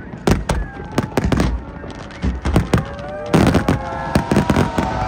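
Fireworks display: aerial shells bursting in a run of sharp bangs, thickening into a fast volley about three seconds in.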